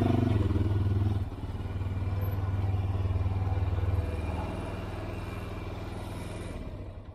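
Honda 400EX ATV's single-cylinder four-stroke engine easing off the throttle and dropping to idle as the quad rolls to a stop, then shut off just before the end.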